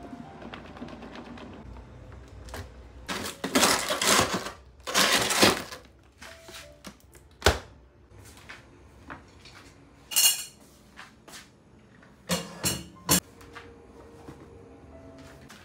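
Kitchen handling noises as a clip-lid plastic food container is moved and put away: rustling and scraping, one sharp click about halfway through, and a few light knocks near the end as small black trivets are set down on a countertop.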